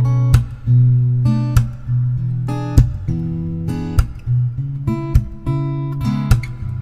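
Acoustic guitar playing the introduction to a song, strummed chords with plucked bass notes, each chord struck sharply.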